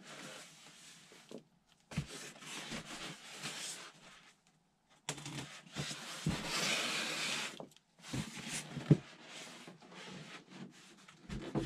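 Polystyrene foam packaging being handled and pulled apart, with plastic wrap rustling, in several bursts of scraping and crinkling. A few dull knocks follow near the end, the loudest about nine seconds in, as the foam lid is lifted off the box.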